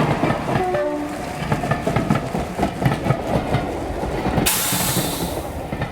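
Underground train sound effect: a rumbling, clattering run with irregular clicks, then a loud hiss like released air brakes starting about four and a half seconds in.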